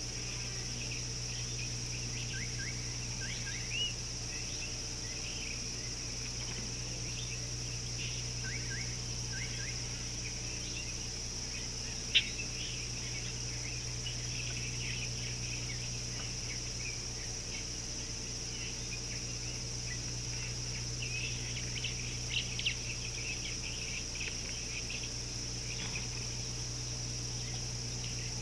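Outdoor ambience from a live wildlife camera: many short bird chirps and whistles throughout over a steady high insect drone and a low steady hum. A single sharp click about twelve seconds in is the loudest moment.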